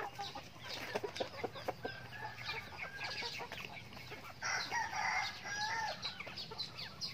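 Chickens foraging: many short clucks and high peeps. About four and a half seconds in, a louder, harsh call lasting about a second and a half, a rooster crowing once.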